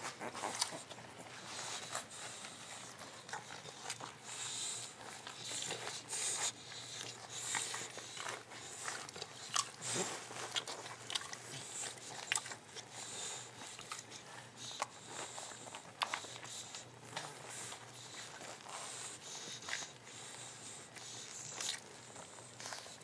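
Young boxer puppies suckling at their mother, a steady run of irregular smacking and sucking clicks.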